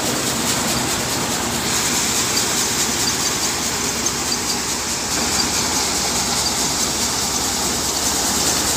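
Tractor-driven NJT thresher threshing soybeans: a steady, loud machine din of the threshing drum and fans with the tractor engine under it. The hiss grows brighter about two seconds in.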